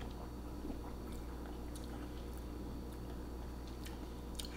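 Faint mouth sounds of someone tasting a sip of soda: scattered small lip smacks and tongue clicks, the sharpest near the end, over a low steady room hum.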